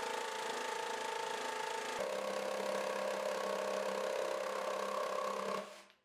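Jigsaw cutting through a thick blackwood slab, its motor and reciprocating blade running steadily. The tone changes abruptly about two seconds in, and the sound dies away just before the end.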